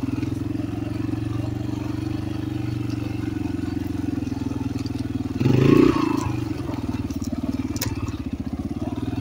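Dirt bike engine running steadily at low revs while the bike rolls slowly, briefly louder a little past halfway through.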